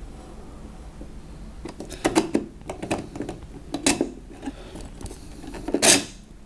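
3D-printed plastic parts of a model magnet motor clicking and knocking as its two halves are pushed together by hand: a few light clacks about two seconds in, another near four seconds, and the loudest knock near the end.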